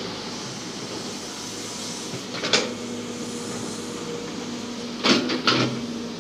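Hitachi crawler excavator's diesel engine running steadily while its bucket digs soil. There are sharp clanks and scrapes of the bucket about two and a half seconds in and twice more near the end.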